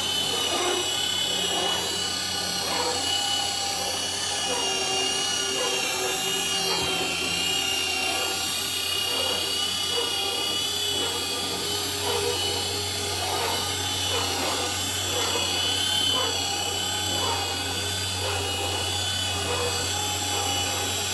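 Electric roof-seaming machine running steadily as it travels along and crimps the standing seam of steel self-supporting roof panels: a continuous motor sound with a steady high-pitched tone and a low hum underneath.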